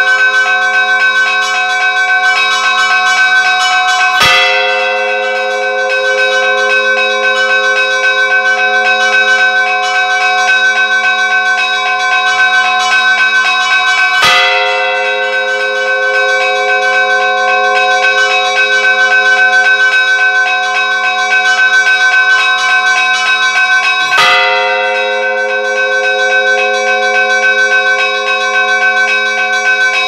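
Orthodox monastery church bells ringing a peal: smaller bells chime in a fast, steady repeating pattern, and a large bell strikes heavily three times, about ten seconds apart.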